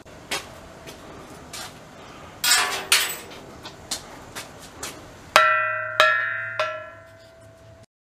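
A temple hall's hanging metal bell, rung by its rope three times about half a second apart, each strike ringing on and fading. Before it, about two and a half seconds in, there is a brief metallic jingling rattle.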